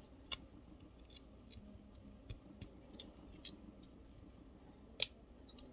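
Faint, scattered clicks and small knocks of the plastic parts of a Studio Series Core Class Bumblebee action figure being handled and transformed, with two sharper clicks, one just after the start and one near the end.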